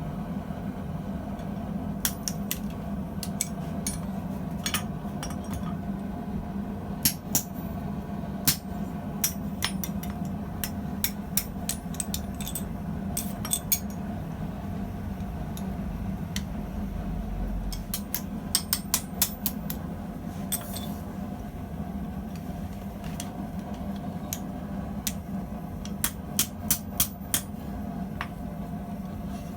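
Hammer blows on hot steel at the anvil, struck in irregular runs with pauses between them, over a steady low hum.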